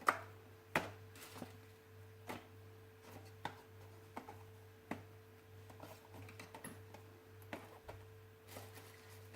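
Irregular light clicks and taps, roughly one every second, over a steady low hum.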